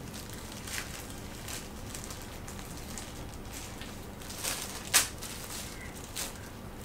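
Thin plastic wrapping crinkling in scattered little crackles as it is handled on a new wooden rolling pin, with a sharper click about five seconds in.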